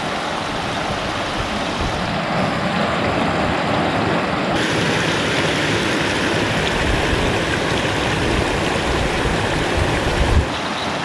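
Floodwater rushing over a small dam and down a narrow creek: a steady rush of running water that brightens abruptly about halfway through.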